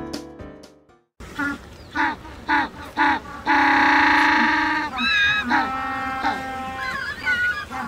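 African penguins braying, the donkey-like call of the species: a few short honking notes, then one long, loud bray about halfway through, followed by more wavering, overlapping calls. Piano music fades out just before the calls begin.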